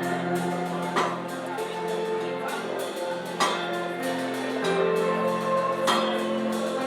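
Instrumental music: held chords that change every second or two, with a sharp percussive stroke about every two and a half seconds.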